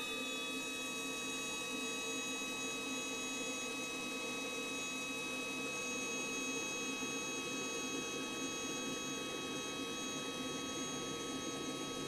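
Launch fuel-injector flow tester running a full-flow test: its pump runs steadily at 4 bar while four motorcycle fuel injectors are held fully open, spraying test fluid into glass measuring cylinders. It makes an even hum with a thin steady whine over it.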